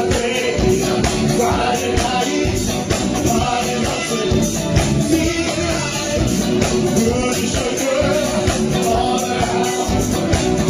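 A live cover band playing a song, with a voice singing over a steady beat.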